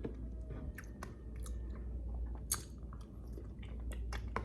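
Close-miked chewing of a mouthful of food, with irregular wet smacks and clicks of the mouth several times a second.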